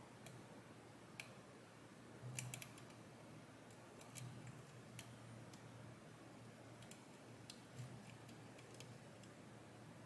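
Faint, scattered clicks and ticks of a lock pick working the pins inside a VSR pin lock, with a small burst of several clicks about two and a half seconds in.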